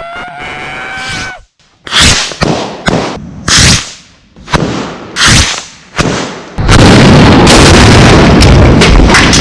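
A rising tone that cuts off, then a string of about seven heavy blasts of cannon and rocket fire. They merge about two-thirds of the way in into a continuous loud roar of explosions and weapon fire.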